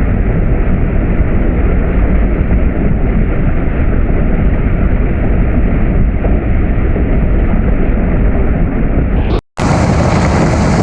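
Heavy farm machinery running steadily with a loud low rumble. About nine and a half seconds in it cuts out for an instant and comes back as a similar, brighter machine noise.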